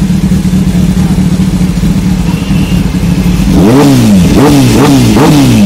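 Kawasaki Ninja ZX-10R's inline-four engine idling steadily, then revved in four quick throttle blips in the last two seconds, the pitch rising and falling with each.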